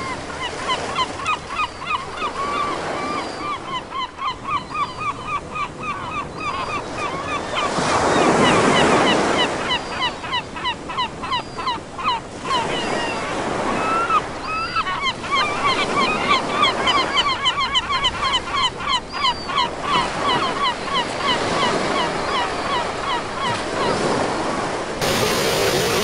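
Gulls calling in quick series of short, repeated cries over steady surf, with waves swelling loudest about eight seconds in. Near the end the calls stop and only surf is heard.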